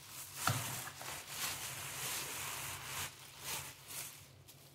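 Metal mesh sieve being shaken over a glass bowl as cassava flour sifts through it: repeated rustling swishes, with a single knock about half a second in.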